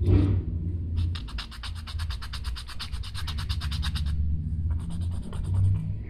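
Nail file rasping across a plastic fake nail in quick back-and-forth strokes, about ten scratchy strokes a second. It stops about four seconds in and starts again more faintly near the end.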